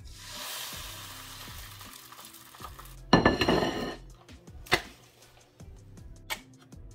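Beaten egg sizzling as it hits a hot nonstick frying pan, a steady hiss for about three seconds. Then a loud, short clatter as a ceramic plate is set down on the countertop, followed by a few light clicks.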